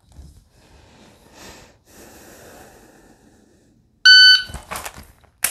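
Faint rustling, then a shot timer's start beep about four seconds in: a loud, steady, high electronic tone lasting about half a second. A few light handling clicks follow as the pistol is drawn, and a sharp click near the end, a dry-fire trigger press.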